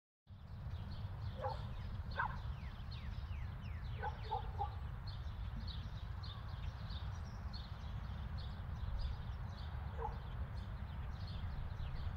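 Outdoor ambience cutting in suddenly after dead silence: small birds chirping over a steady low rumble, with a few short, louder calls around one and a half, two and four seconds in and again near ten seconds.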